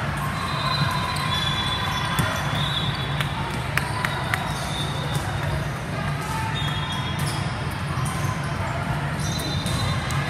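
Indoor volleyball gym ambience: scattered sharp smacks of volleyballs being hit and bouncing across several courts, with a steady murmur of voices echoing in the large hall.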